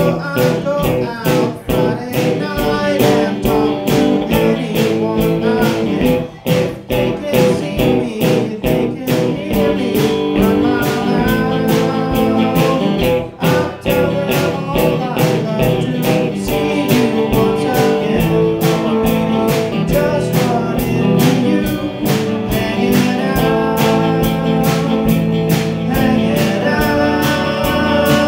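A live rock band playing a song: electric guitars, bass guitar and a drum kit keeping a steady beat, with a sung lead vocal at times.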